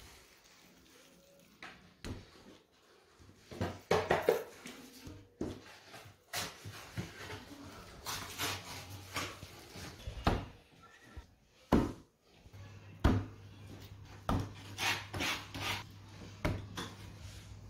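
Irregular handling noises of hands working risen dough and kitchen things: scattered knocks and taps with short stretches of rubbing. A faint low hum comes in about two-thirds of the way through.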